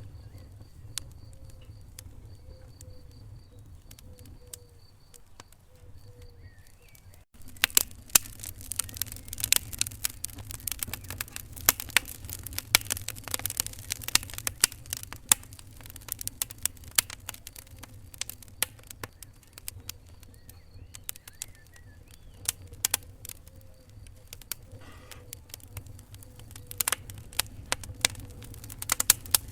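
Wood fire crackling in a fireplace: sharp snaps and pops over a low, steady rumble of flames. The pops come much thicker and faster from about seven seconds in.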